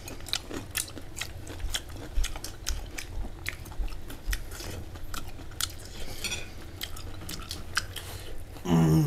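Cutlery clinking against dishes in many short, irregular clicks, with chewing while someone eats.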